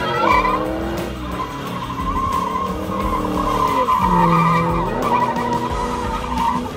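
A car doing donuts on asphalt: tyres squealing continuously while the engine revs rise and fall as the car spins.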